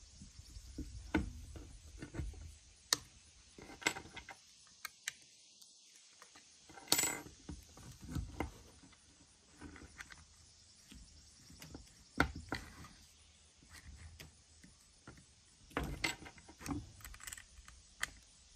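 Irregular clicks, taps and light metallic clinks of a Dremel flex shaft's cable and fittings being handled and fitted back together by hand.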